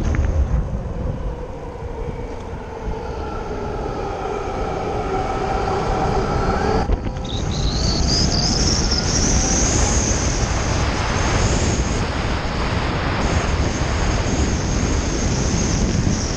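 Motorbike being ridden along a street, with wind noise on the microphone. A whine rises slowly in pitch for about seven seconds and breaks off. A high whine then climbs and holds steady.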